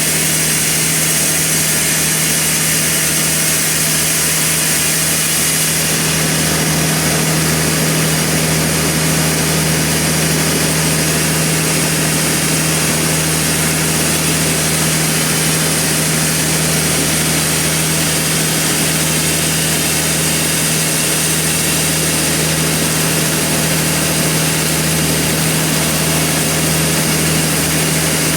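Sawmill machinery running steadily as a Trembesi log is sawn, a constant low hum under dense saw noise that grows fuller about six seconds in.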